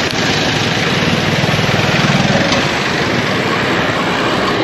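Steady rush of wind over the microphone of a camera on a moving road bicycle, mixed with road noise.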